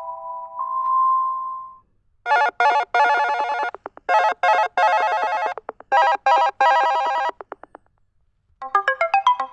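Nokia 2.3 smartphone ringtones played one after another. A tune of held notes ends about two seconds in, then a ringtone of rapid stuttering notes sounds in three bursts with short pauses between, and near the end another ringtone begins with quick notes running up and down.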